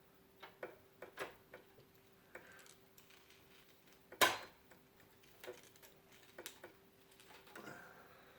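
Irregular small clicks and taps of computer parts being handled, with one sharper knock about four seconds in, over a faint steady hum.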